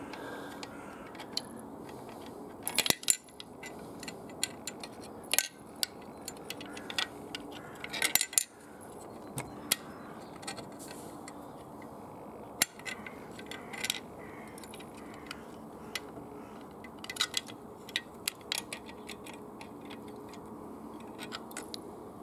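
Irregular small metallic clicks and taps of brass fittings being handled and screwed in on a 3/4-inch Maxitrak Allchin model steam traction engine, as its safety valve is refitted to the filled boiler.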